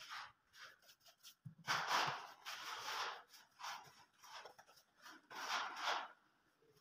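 Hand spatulas scraping glue out of a bucket and spreading it along the slats of a wooden door frame, ready for the door skins to be pressed on: a series of scrapes, the longest a little under two seconds in.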